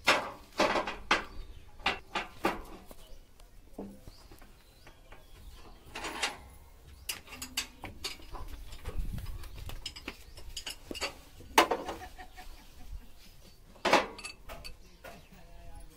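Hand tools clinking and knocking against the metal parts of a tractor's rear hydraulic lift linkage: a string of irregular sharp clanks and taps, with the loudest hits about half a second in, around six seconds, around eleven and a half seconds and near the end.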